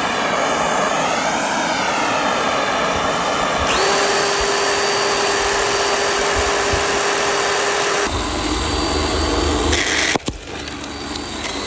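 Ryobi 10-inch electric chainsaw running. Its motor whine wavers in pitch at first, then holds steady. About eight seconds in the sound turns heavier as it saws into a wooden 2x4, and it drops off suddenly about two seconds later.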